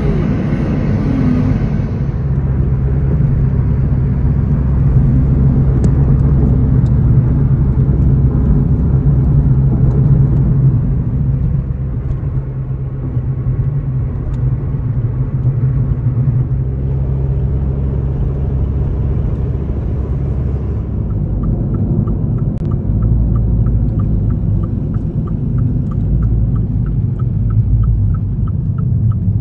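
Steady low rumble of a car being driven, heard from inside the cabin. About two-thirds of the way in, a fast, even ticking of about three ticks a second joins in.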